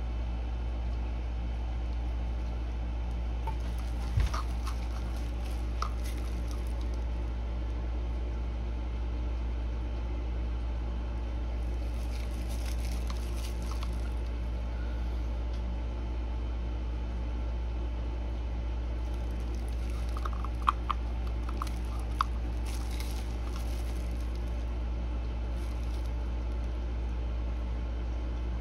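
Faint, intermittent scraping and squishing of a stir stick working thick epoxy resin out of a cup, with a few light taps, over a steady low electrical hum.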